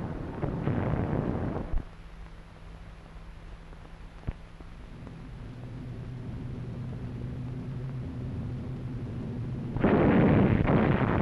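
Old newsreel soundtrack: a noisy factory din for the first couple of seconds, then the steady drone of aircraft engines slowly growing louder, and about ten seconds in a sudden loud roar of bomb explosions.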